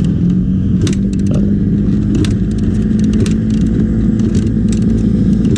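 Yamaha YZ250 two-stroke single-cylinder engine running steadily, with scattered sharp ticks over it.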